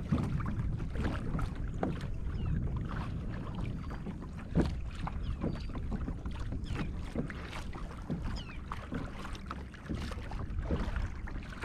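Water slapping and splashing against a Hobie Outback kayak's hull as it moves, in short irregular splashes, over a steady wind rumble on the microphone. One sharper knock comes about four and a half seconds in.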